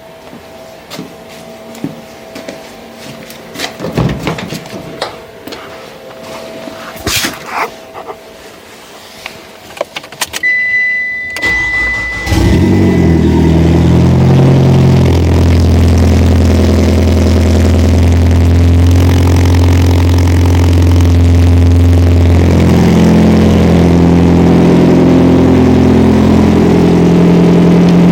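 Clicks and knocks and a short high beep, then the Mitsubishi Lancer Ralliart's turbocharged 2.0-litre inline-four cranks briefly and starts about twelve seconds in. It then idles loudly and steadily through its exhaust.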